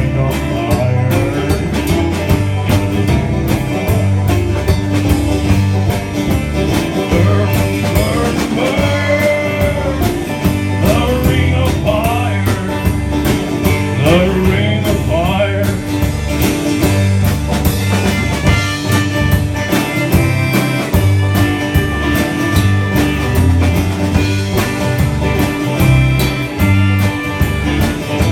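A country band playing live: drums, bass and guitar keep a steady beat while a lead line slides up and down in pitch through the middle of the passage.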